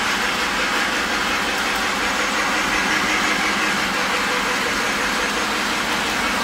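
Lionel LionChief Union Pacific Flyer O-gauge model steam train running laps around its oval of track, a steady mechanical running noise from the locomotive and its wheels on the rails.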